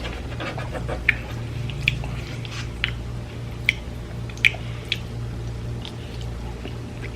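A person chewing food close to the microphone, with wet mouth smacks and clicks; the sharpest come about once a second. A steady low hum runs underneath.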